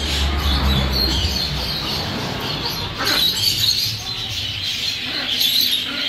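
Many caged small birds chirping and chattering together in a room full of cages, a continuous high-pitched twittering, with a low rumble in the first second.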